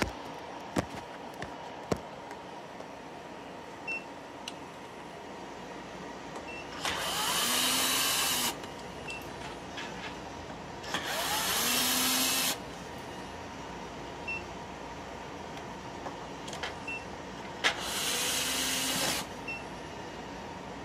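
Electric drill with a Phillips screwdriver bit run three times, each about a second and a half, whining up to speed as it backs out the three screws holding a UPS battery in place. A few light clicks of handling between the runs, over a steady background hum.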